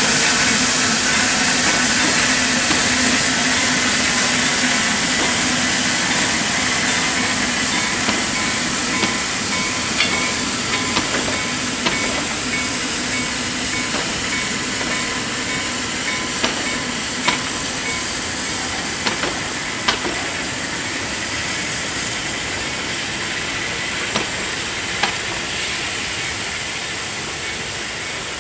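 Narrow-gauge steam train running past over a level crossing: a steady hiss of steam and running noise slowly fading as the locomotive pulls away, while the carriage wheels clatter with sharp clicks over the rail joints. The level crossing's bells ring faintly underneath.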